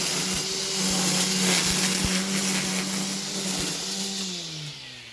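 EGO 56-volt battery string trimmer running at full speed, a steady electric whine with hissing line and scattered sharp ticks as the line strikes weeds. About four seconds in, the pitch falls and the trimmer winds down as the trigger is released.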